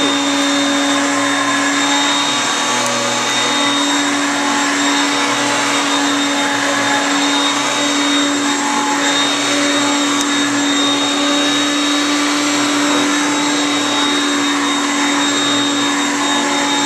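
Hoover Concept One vacuum cleaner running steadily on speed 1 while sucking up shredded newspaper: an even rush of air with a steady motor hum and a thin high whine.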